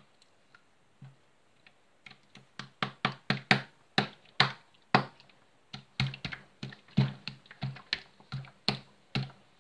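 Slime being kneaded by hand and pressed against a tabletop, making quick sticky clicks and slaps, about three or four a second, starting about two seconds in.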